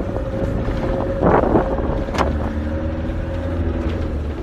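RV engine running with a steady low rumble as it drives off in strong wind, with a loud rush of wind buffeting about a second and a half in and a sharp click a little after two seconds.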